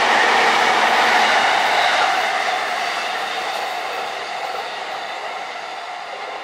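JR East E657 series electric limited express train running past on the rails: a steady rush of wheel and rail noise that begins to fade about two seconds in as the train draws away.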